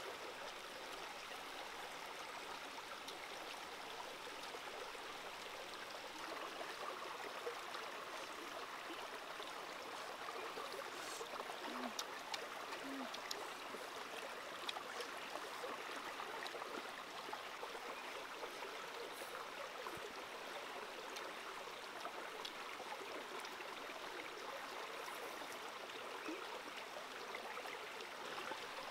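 Shallow stream running over rocks: a steady, even water rush, with a few light clicks about halfway through.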